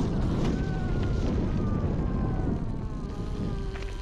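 Wind buffeting the bike-mounted action camera's microphone, with the faint whine of an electric trials motorcycle's motor under it, slowly falling in pitch.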